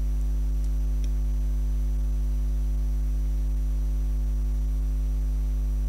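Steady electrical mains hum: a low buzz with a ladder of evenly spaced overtones and a faint high-pitched whine above it. A couple of faint ticks come about a second in.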